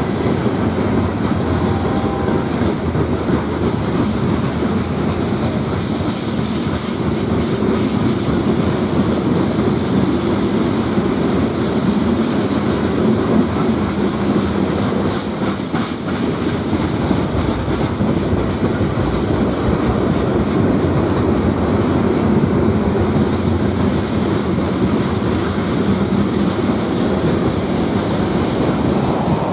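A freight train's cars, a centerbeam lumber car and then covered hoppers, rolling past close by. Their wheels make a steady, unbroken rumble on the rails.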